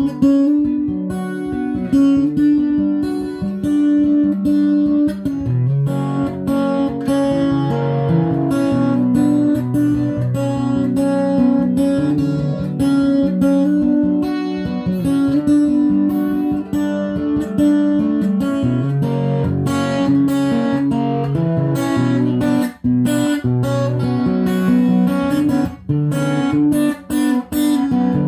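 Acoustic guitar playing a rhythmic, repeating hip hop–style riff: plucked notes with sharp string attacks. There are a few brief stops in the riff near the end.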